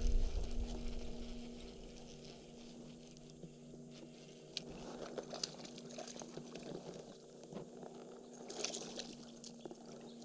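Water splashing and trickling at the side of a kayak as a hooked smallmouth bass is reeled in and brought to the boat, with sharper splashes about five and nine seconds in. A low rumble fades over the first second or so, and a faint steady hum lies underneath.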